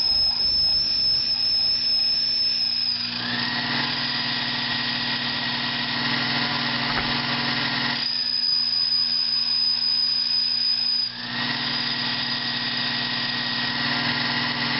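Metal lathe running while turning a small engine Venturi sleeve, its motor humming steadily under a high whine. The whine twice gives way to a rougher hiss with a lower whine, about 3 seconds in and again about 11 seconds in.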